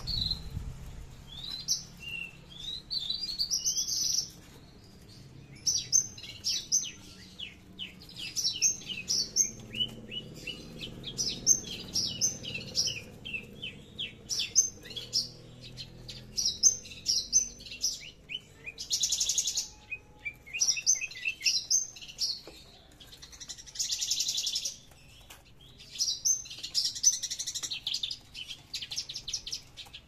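Javan bush lark (branjangan) singing a long, varied song of rapid high chirps and trills in quick phrases with brief gaps, including several longer buzzy trills in the second half.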